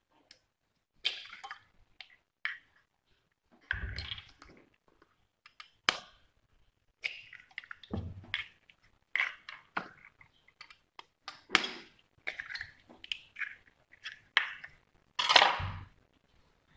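Eggs cracked one after another on the rim of a stainless steel pot: sharp taps of shell on metal and the crackle of shells being broken and pulled apart, with the loudest crack near the end.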